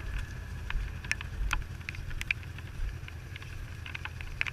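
An off-road 4x4 vehicle on the move, giving a steady low rumble, with scattered sharp ticks at irregular intervals throughout.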